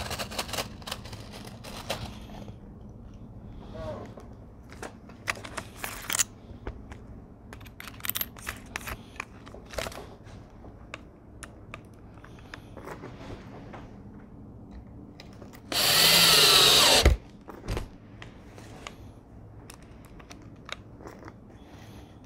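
Cordless drill runs once for about a second and a half, about two-thirds of the way in, while screwing hanging hardware into a wooden picture frame. Before it come scattered small clicks and rattles of hardware and tools being handled on a padded worktable.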